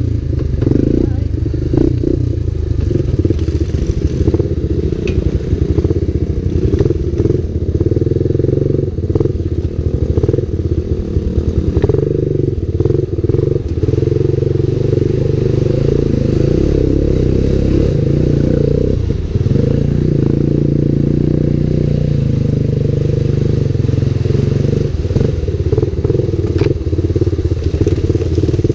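Dirt bike engine running and revving unevenly, muffled, with frequent knocks and clatter as the bike rides over a rough, muddy trail. Water splashes as it ploughs through a mud hole about halfway through.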